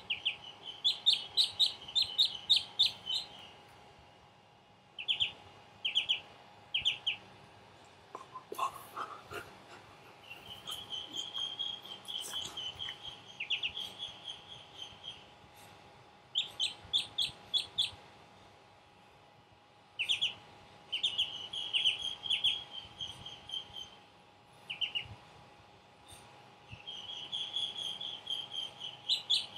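Duckling peeping: runs of high, shrill peeps, several a second, in bouts of one to three seconds with short pauses between. A brief rising squeak comes about eight seconds in.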